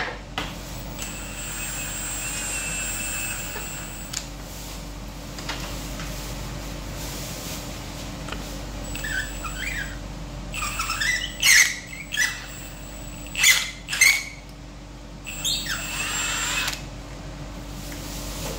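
Hand work on a stripped-down engine: a steady high whine for about three seconds near the start. Later come squeaks and scrapes of metal on metal and several sharp clanks.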